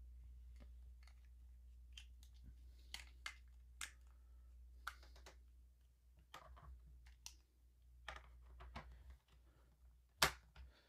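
Plastic toy-store pieces handled on a plastic baseplate: a scatter of faint clicks and taps, then a sharper snap near the end as a checkout-aisle piece is pressed down and hooks into place.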